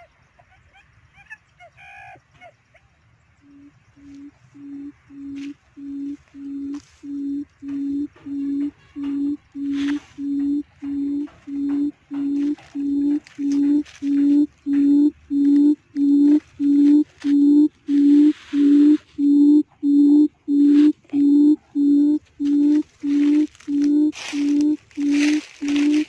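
Barred buttonquail calling: a long series of low, even hooting notes, about one and a half a second, starting soft and growing louder, then holding steady. Brief rustling bursts near the middle and again near the end.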